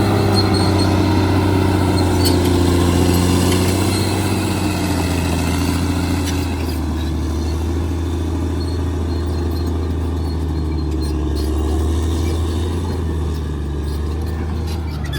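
Caterpillar D6R XL bulldozer's diesel engine running steadily under work. About five seconds in the engine note drops a little and the rattle above it thins out.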